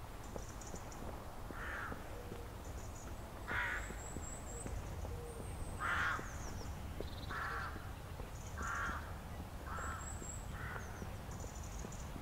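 Crows cawing, about seven separate harsh caws spread over several seconds, with the two loudest about four and six seconds in. Small birds chirp faintly and high above them, over a steady low rumble.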